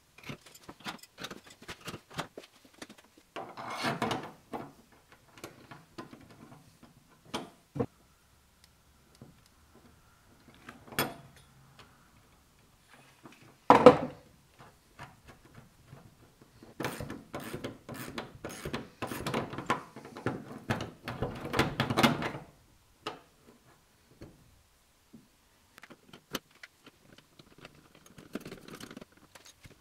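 Metal hooks being fitted to the hinge brackets of a steel sectional garage door and their nuts tightened with a wrench: scattered metallic clicks and taps, one loud knock about halfway through, and a few seconds of rapid clicking in the second half.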